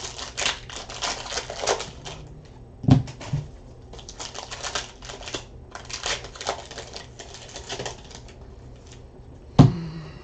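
Trading cards and their plastic-wrapped packs handled by hand. There are bursts of rapid clicking and rustling as cards are flicked and slid against each other, and a sharp knock about three seconds in and again near the end as the stack meets the table.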